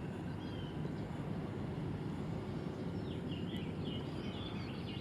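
Steady low outdoor background rumble with faint bird chirps, a short run of them about three to four seconds in.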